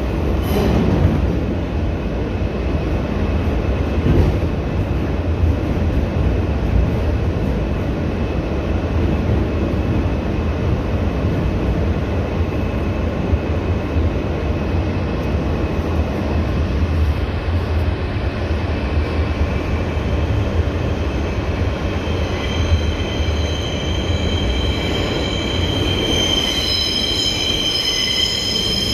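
A New York City subway R160B train running, with a steady low rumble of wheels on track heard from inside the car. In the last several seconds the wheels begin a high squeal of several steady pitches that grows louder.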